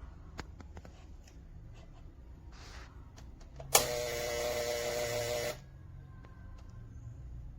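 Portable 12 V electric tyre inflator's compressor starting abruptly, buzzing for about two seconds and stopping suddenly, after a few faint clicks of handling.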